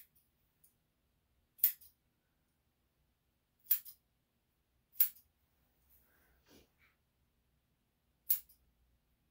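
Grooming scissors snipping hair on a Yorkshire Terrier puppy's front leg and paw: four sharp single snips, one to three seconds apart.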